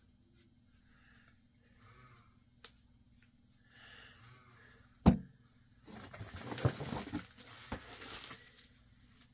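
Mostly quiet for the first five seconds, then a single sharp knock. After it, about two seconds of rustling and crinkling with small clicks as toys and packing are rummaged through in a cardboard box.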